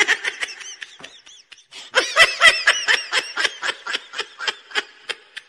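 A person laughing in a quick run of high-pitched giggles, starting about two seconds in.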